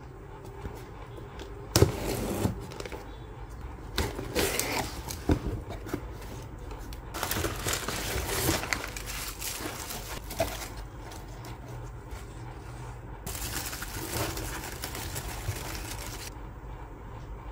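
Kraft packing paper and honeycomb paper wrap rustling and crinkling in several bursts as they are pulled out of a cardboard box, with a sharp knock about two seconds in. A steady low hum runs underneath.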